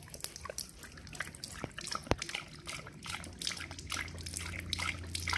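Water from a garden hose trickling and dripping in small irregular splashes while a husky-type dog drinks from the hose end. A faint low hum comes in about halfway through.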